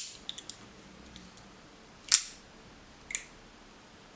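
Mikov Predator switchblade's lever-lock mechanism being worked: a few faint metallic ticks at first, then one sharp click about two seconds in and a softer click about a second later.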